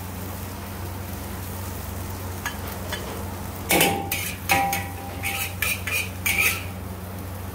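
Metal wok spatula scraping and clanking against a wok as stir-fried noodles are scooped out, with a handful of sharp, ringing clanks in the second half over a steady low hum.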